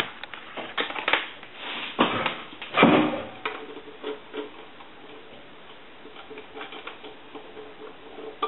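Handling of telephone line cords at a bell box: a run of sharp plastic clicks and taps, with a louder rustle and knock about two to three seconds in as a modular plug is pushed into the jack. A faint steady tone comes in about halfway.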